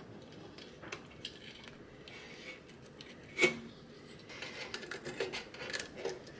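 Small clicks and rustles of wiring plugs and a replacement espresso-machine control board with aluminium heat sinks being handled while its cables are connected, with one sharper, ringing click about three and a half seconds in.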